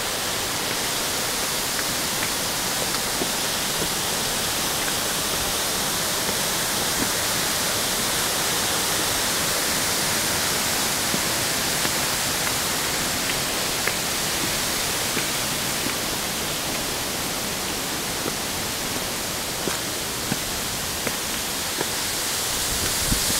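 Waterfall in heavy flow, swollen by rain: a steady, unbroken rush of falling water.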